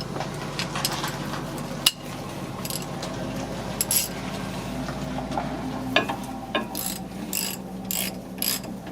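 Hand ratchet wrench being worked in steady strokes, its pawl clicking about two to three times a second in the second half, over a steady low hum.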